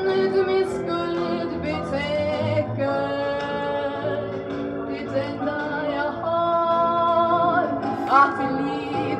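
A woman singing a Swedish gospel hymn with instrumental accompaniment on a 1966 recording, holding long notes with vibrato.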